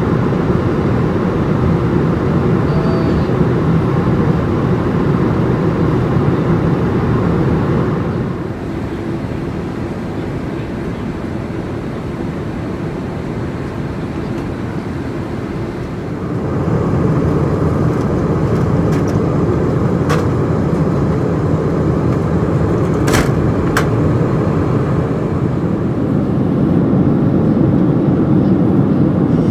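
Steady cabin noise of a Boeing 787-8 in cruise flight, the rush of air past the fuselage and the distant engines. It drops quieter for several seconds about a third of the way in, then rises back to the same level, with a few faint clicks in the later part.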